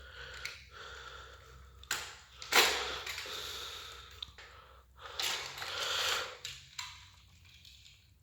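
Plastic toys being handled on a play surface: a few sharp clicks and knocks, and two longer rustling, scraping noises, the first starting with a loud knock about two and a half seconds in.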